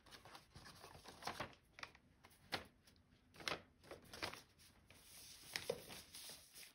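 Needle and two strands of cotton floss working through 14-count Aida cloth in cross stitching: an irregular string of short, faint scratchy pops and rasps as the needle pierces the fabric and the thread is drawn through.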